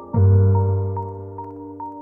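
Ambient film-score music: just after the start a deep note comes in sharply and rings out, slowly fading under steady higher tones.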